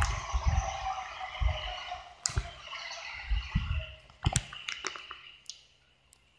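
Handheld phone camera being moved about: gusts of wind rumble on the microphone and there are several knocks and clicks of handling, over a background hiss that fades away about five seconds in.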